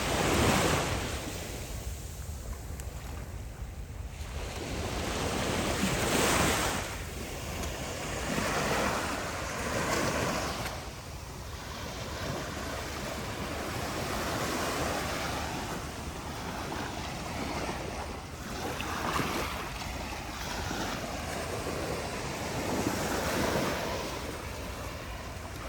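Sea waves breaking and washing up the beach, rising in loud surges every few seconds (the strongest just after the start and around six seconds), with wind rumbling on the microphone underneath.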